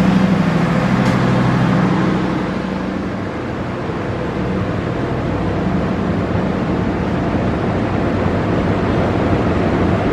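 A vehicle running: a steady engine hum for about the first two seconds, which fades as the sound dips slightly, then an even running noise.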